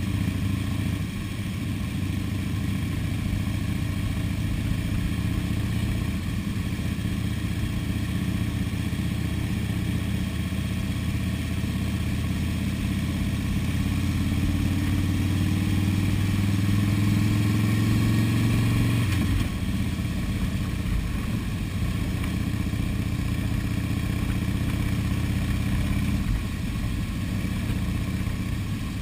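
Motorcycle engine running steadily while riding in a slow procession of motorcycles, heard from the rider's seat. Its pitch climbs slowly from about halfway through, then drops suddenly about two-thirds of the way through and settles again.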